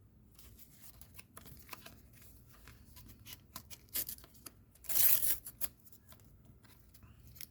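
Thin paper stickers being handled and slid against each other: light clicks and rustles, with a louder papery rustle about five seconds in.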